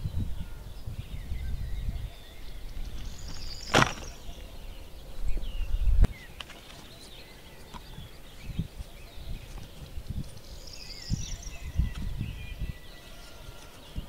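Pieces of dry bark and wood being handled and stacked into a fire lay, knocking and clattering against each other. There is a sharp knock about four seconds in, a heavier thump at about six seconds, and a run of lighter knocks in the second half.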